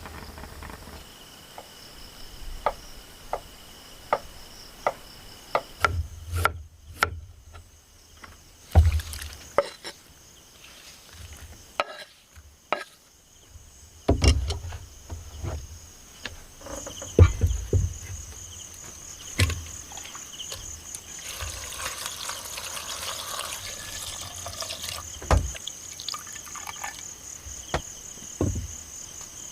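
Crickets chirring in steady high tones, a fast-pulsing band joining about halfway through. Scattered sharp clicks and knocks and a few low thumps come and go throughout.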